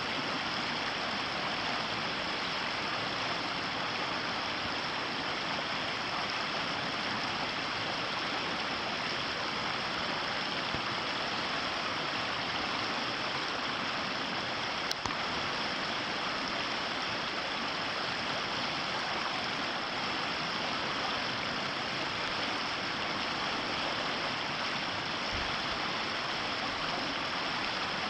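Ōtakine River flowing: a steady, even rush of water. A single small click about halfway through.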